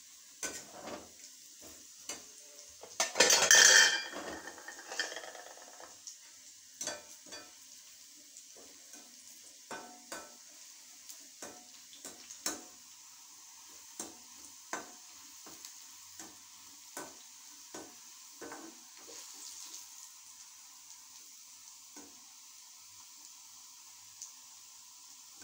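Metal utensils knocking and clinking against cooking pots, scattered short knocks all through. A loud hiss lasts about a second and a half, starting about three seconds in.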